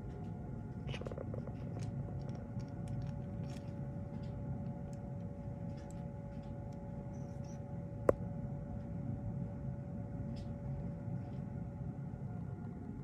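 Steady low hum with a faint steady tone, scattered small clicks and faint high chirps, and one sharp click about eight seconds in.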